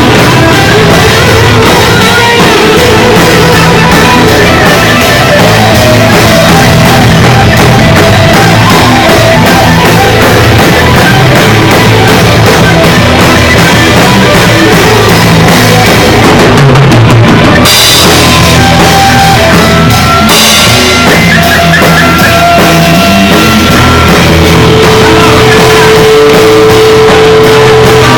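Rock band playing loud, with a drum kit and guitar. A long note is held near the end.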